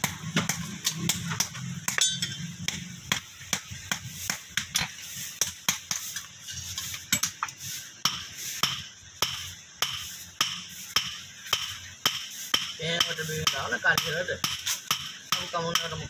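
Hand hammer striking red-hot steel on a block anvil in a steady run of sharp blows, about three a second, as a gardening trowel blade is forged.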